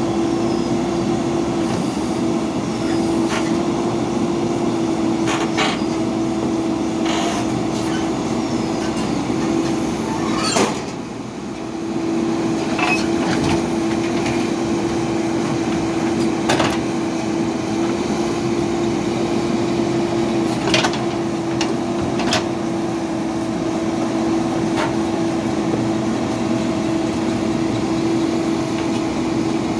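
Heavy diesel machinery running steadily with a constant hum, with scattered sharp knocks and clanks of the bucket work, and a brief drop in level about a third of the way in.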